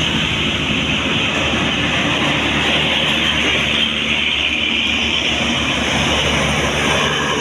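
A large bus driving past close by: steady engine rumble and loud tyre and road noise, with no horn.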